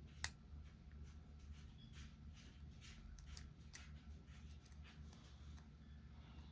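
Faint clicking of a lock pick working the pins inside a Dorma lock cylinder: one sharper click just after the start, then a scatter of light ticks.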